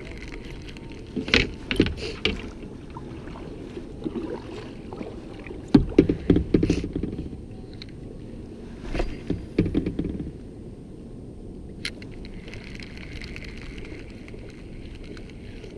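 Knocks and clatter of fishing gear being handled against a plastic kayak: a few sharp knocks about a second in, a quick run of them around six seconds in and more around nine seconds, over a steady low rumble.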